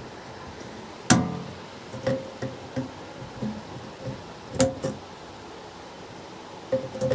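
Irregular metallic knocks and clanks from a ceiling fan being handled and taken apart. The loudest comes about a second in and rings on briefly, with a few smaller knocks later and a cluster near the end.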